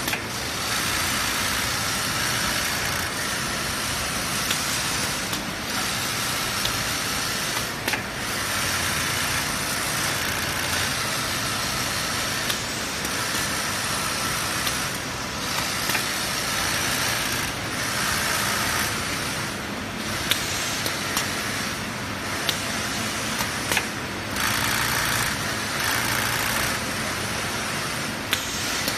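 Robotic carpet-tufting machine running, its tufting head punching yarn into the backing cloth: a steady mechanical buzz with brief dips and occasional sharp clicks.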